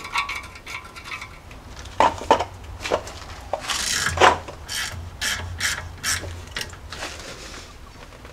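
Hand tools working the 3/8-inch internal hex bolts of a rusty front disc brake caliper: a ratchet wrench clicking, with scraping and knocks of metal against the caliper.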